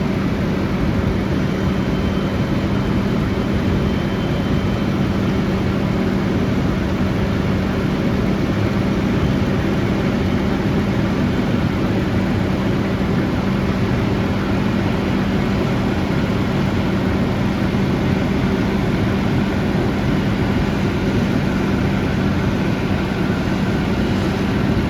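Claas Lexion 760 combine running: a steady, unbroken machine noise with a constant low hum.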